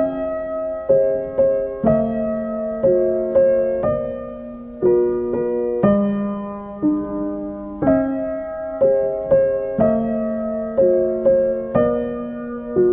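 Background music: a slow, gentle piano piece, its notes struck one to two a second and left to fade.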